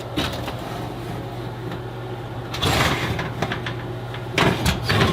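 Steel suspension control arms being handled: scraping, then a few clunks as the metal parts are moved and set down, over a steady low hum.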